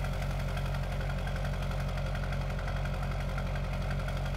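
6.6L Duramax V8 diesel, swapped into a 1989 Chevrolet K1500 pickup, idling steadily through a straight-piped exhaust, heard at the tailpipe.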